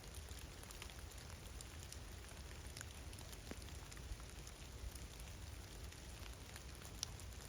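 Light rain falling, with scattered drops ticking close by and one sharper tick near the end.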